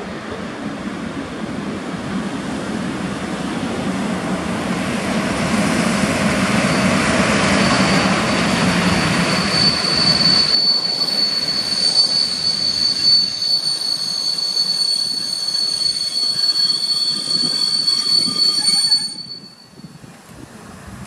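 Locomotive-hauled passenger train arriving and braking, its rumble growing louder as the locomotive and carriages roll past. A steady high squeal joins partway through and holds until the train stops near the end, when the sound drops away abruptly.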